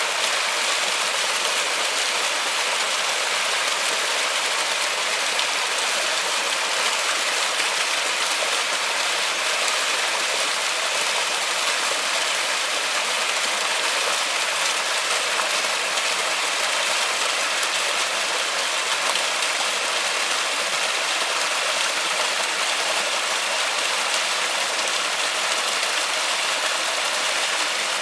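Steady, dense rain falling in a forest, an even hiss with no let-up or distinct drops standing out.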